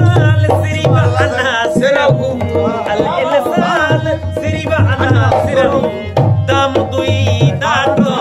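A man singing a devotional song with sliding, wavering pitch, accompanied by tabla whose deep bass strokes fall in a steady rhythm under the voice.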